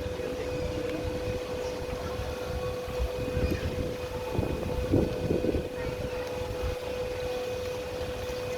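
Camera gimbal motors giving a steady whine, with wind buffeting the microphone. Faint voices pass about halfway through.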